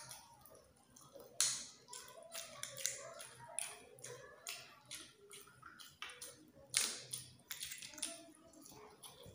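Cooked freshwater snail shells (kuhol in coconut milk) clicking and knocking against one another and the plate as fingers pick through them: an irregular run of sharp clicks, with two louder knocks about a second and a half in and near seven seconds.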